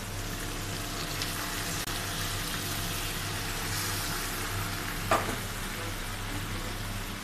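Hot oil sizzling steadily in a wok as food fries and is stirred with a wooden spatula. One sharp knock about five seconds in, with a few fainter clicks.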